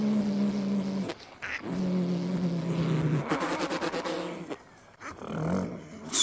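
A man imitating an old Mercedes-Benz diesel truck engine with his voice. He holds two long droning notes, the second sinking slightly in pitch, then breaks into a rougher, hissing growl for about a second. Shorter, fainter engine noises follow near the end.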